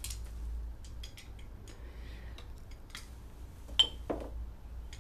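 Light clicks and taps of paintbrushes and a palette being handled, with one sharp ringing clink a little before four seconds in and a duller knock just after it, over a low steady hum.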